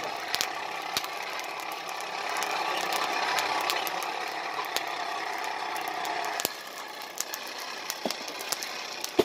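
Blower forcing air into a charcoal brazier, a steady whir with scattered crackles and pops from the sparking coals. The whir drops off about six and a half seconds in.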